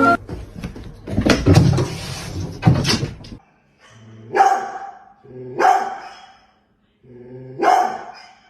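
A dog barking: three drawn-out barks a second or two apart in the second half, after a few seconds of noise with some knocks.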